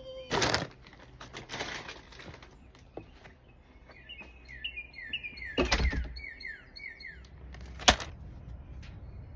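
Birds chirping, a run of short, quick downward-sliding notes through the middle, over faint outdoor background noise. Several handling thumps and rustles break in, the loudest a sharp knock near the end.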